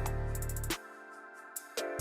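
Background music: a produced beat with drums and a heavy bass line, the bass dropping out about three-quarters of a second in and coming back near the end.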